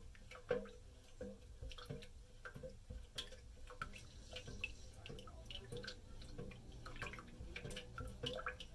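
Melted soy wax being stirred in a metal pouring pitcher to mix in fragrance oil. Faint, irregular clicks and scrapes of the stirring utensil against the pitcher, with a light slosh of the liquid wax.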